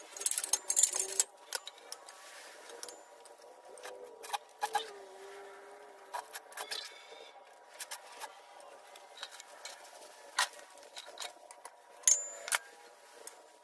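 Irregular metallic clicks and knocks from handling and working a small Harbor Freight press while seating a new PTO shaft seal on a John Deere 1020 tractor, with a faint steady hum underneath.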